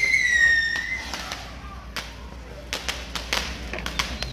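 Fireworks going off during a torito burning: a loud high whistle falling slightly in pitch, ending about a second in, then a rapid string of sharp firecracker cracks, the loudest at the very end.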